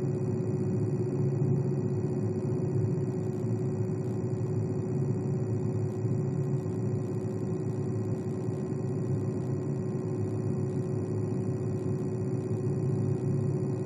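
Computer cooling fan running steadily: an even rush of air with a steady hum tone in it and faint high-pitched whines above.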